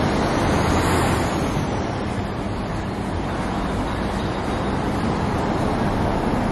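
Steady street traffic noise: an even rumble and wash of passing vehicles, without breaks.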